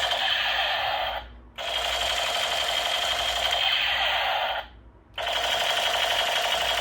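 A toy sound gun playing its rapid-fire machine-gun sound effect, a fast, dense rattle in bursts of about three seconds. It cuts off about a second in and again near the five-second mark, each time restarting after a brief pause as the trigger is pulled again.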